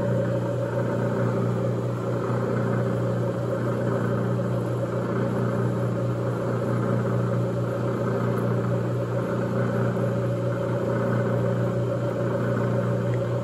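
Old flat-belt, quick-change speed drill press running steadily under power while a half-inch 13-thread tap cuts threads in steel plate, lubricated with lard cutting oil. A steady motor and belt hum that does not change.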